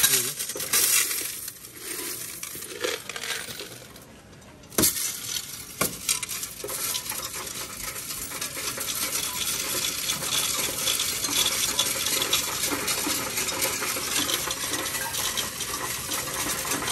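Loose coins poured from a plastic jar into a coin-counting kiosk's metal tray with a loud clatter, then pushed in by hand. From about five seconds in, a steady rattle of coins running through the machine as it counts them.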